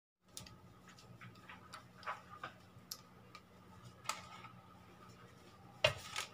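Light clicks and taps of a wooden spatula and a slotted spatula against a stainless-steel pot and a plate, as syrupy candied ginger slices are lifted out and piled up, with a louder knock near the end. A faint steady hum runs underneath.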